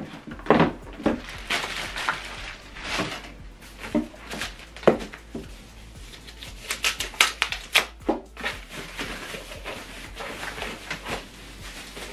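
Scattered knocks, clicks and rustles of hands handling the unboxed soundbar and its parts, with a quick run of clicks about two-thirds of the way through.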